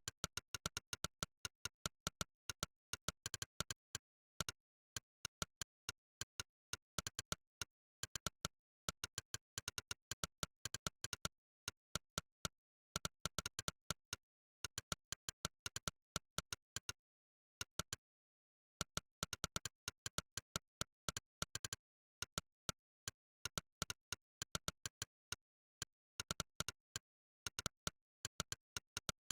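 Monkeytype's synthesized 'click' keypress sound, one sharp click per keystroke during a typing test. The clicks come in quick irregular runs of several a second, broken by short pauses, with dead silence in between.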